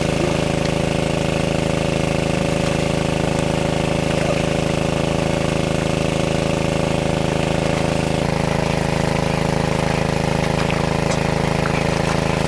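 A small engine running steadily at a constant speed, its tone shifting slightly about eight seconds in.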